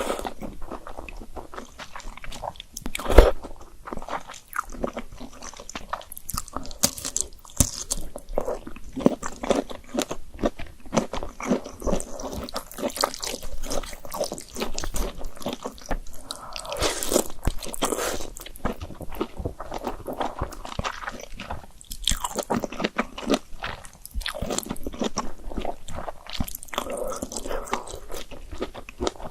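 Close-miked chewing and biting of Korean-style instant noodles, with many small wet clicks and crunchy bites throughout. A single sharp knock stands out about three seconds in.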